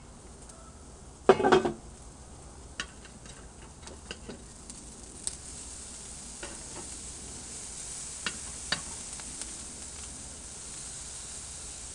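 Steaks sizzling on the grate of a small Weber charcoal kettle grill, the hiss growing stronger in the second half. A loud metal clatter comes about a second in as the grill lid is handled, and scattered sharp clicks follow as tongs turn the meat.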